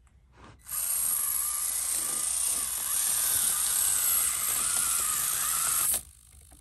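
The Basher Rocksta mini rock crawler's small electric drive motor and gears whining steadily at high throttle, with a slightly wavering pitch. It starts abruptly under a second in and cuts off suddenly about a second before the end.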